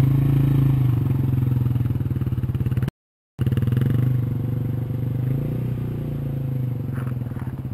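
Dual-sport motorcycle's single-cylinder four-stroke engine idling steadily at an even pitch, with a short break of all sound about three seconds in.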